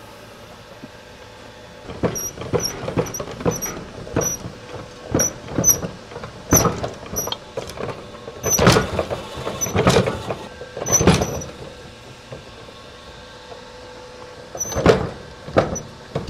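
Belt-driven mechanical power hammer striking red-hot steel in uneven runs of blows, starting about two seconds in, each blow with a short high metallic ring, and a pause near the end. The smith is bending the fold-forged outer steel of a kitchen knife blade into a U shape.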